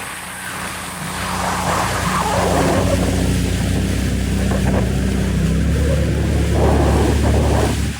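Seabreacher watercraft's engine running steadily, its low drone growing stronger about six and a half seconds in, with swelling rushes of noise over it.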